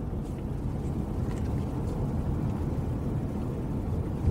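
Steady low rumble of a car driving, engine and road noise heard from inside the cabin.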